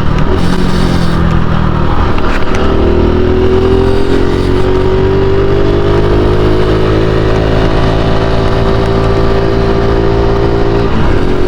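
Honda Pop 110i's small single-cylinder four-stroke engine running under way, its pitch rising slowly as the bike picks up speed, then dropping suddenly near the end.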